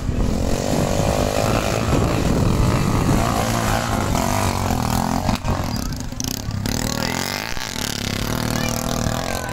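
Motorcycle engine running and revving, its pitch rising and falling as it works over a muddy dirt track.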